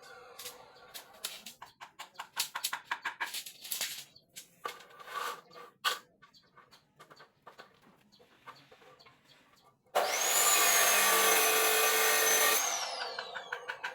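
Irregular tapping and knocks of handwork for the first few seconds. About ten seconds in, a handheld power tool starts up with a high whine, runs steadily for about two and a half seconds, then spins down with a falling whine.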